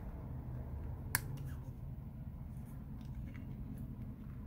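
A plastic pry card working in beside a glued Samsung Galaxy S9 Plus battery to loosen its adhesive: one sharp click about a second in, then a few faint ticks, over a low steady background hum.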